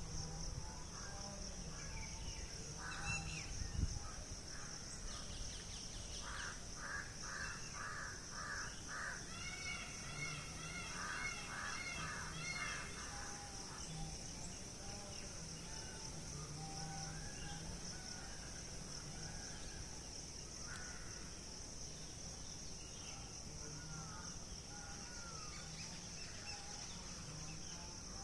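Outdoor birds-and-insects ambience: a steady high-pitched insect drone runs throughout. From about six to thirteen seconds in, a bird gives a quick series of harsh, repeated calls, about two or three a second.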